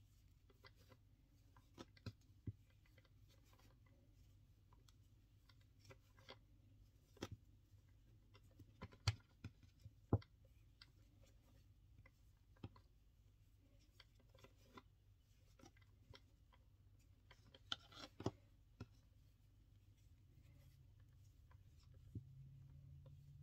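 Quiet handling sounds of macrame cord being knotted by hand: scattered soft taps and clicks, a few of them louder, over a low steady hum that gets louder near the end.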